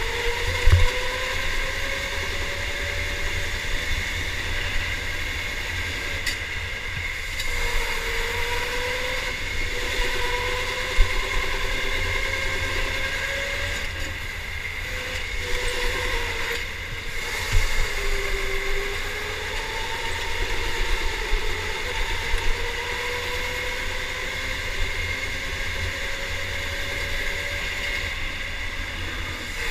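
Electric go-kart's motor whining as it laps, its pitch rising and falling every few seconds as the kart speeds up and slows for the corners, over a steady low rumble heard from the driver's seat, with a few short knocks.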